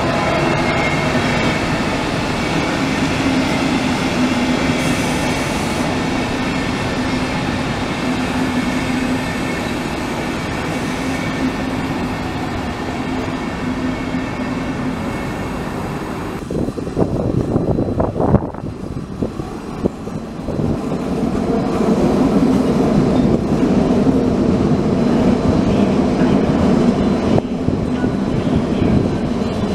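Passenger train coaches rolling past on the rails: a steady rumble with a humming tone. Just past the middle it dips and a few sharp knocks come through, then a second train's coaches roll past.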